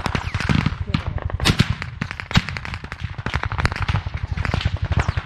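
Heavy small-arms gunfire in a firefight: many rifle shots in quick, overlapping succession, some close and sharp, others further off, with especially loud cracks about one and a half and two and a half seconds in.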